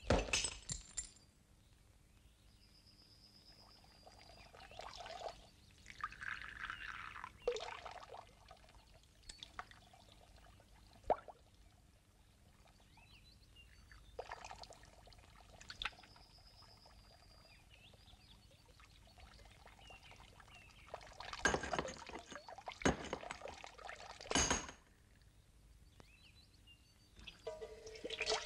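Cartoon foley sound effects: a string of separate sharp knocks and clinks, a cluster of them about three quarters of the way through, between stretches of rustling and scraping, with two short high squeaks.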